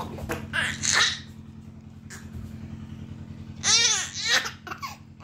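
A baby laughing: breathy giggles in the first second, then a loud high-pitched squealing laugh about three and a half seconds in. A steady low hum runs underneath.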